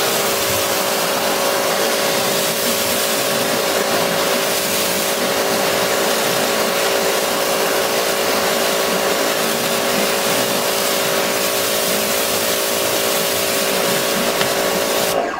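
Pressure washer running, a steady pump hum under the hiss of its water jet spraying onto a car bonnet. It cuts off abruptly near the end.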